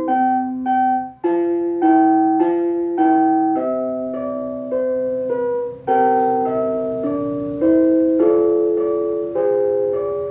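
Public-address time chime from a Unipex electronic sound source over a wired-broadcast loudspeaker system, playing a slow melody in electric-piano-like tones over chords, each note struck and then fading.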